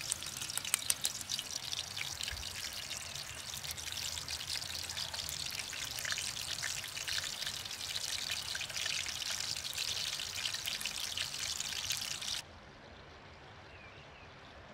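Minced-meat kebab patties frying in hot oil in a pan, a dense sizzle full of small crackles and pops. The sizzle cuts off suddenly near the end, leaving a much quieter background.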